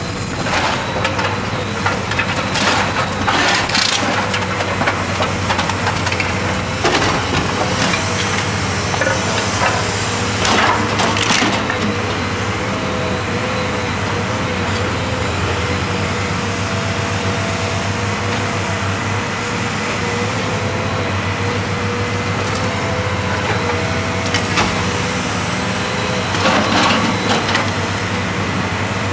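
Caterpillar 330B L high-reach demolition excavator tearing into a house with its sorting grab: the diesel engine and hydraulics run steadily while timber and masonry crunch and splinter over and over. The loudest breaking comes a few seconds in, around ten seconds in, and again near the end.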